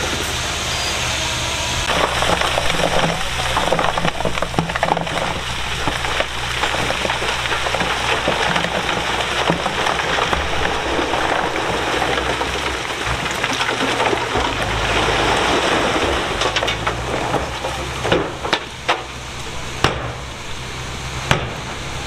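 Diesel earthmoving machinery working stone: a steady low engine hum under continuous gravelly crackling and scraping of rock, with several sharper cracks near the end.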